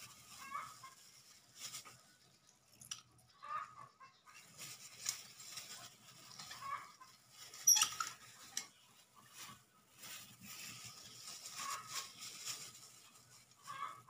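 Metal hand-held citrus squeezer clicking and a plastic food-prep glove crinkling as small citrus halves are pressed; faint, irregular rustles and clicks, with the sharpest click about eight seconds in.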